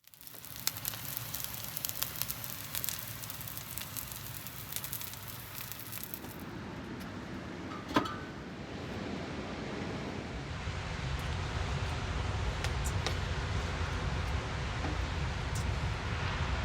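Wind buffeting the microphone over a steady rush of ocean surf, with scattered crackles through the first several seconds and one sharp click about eight seconds in.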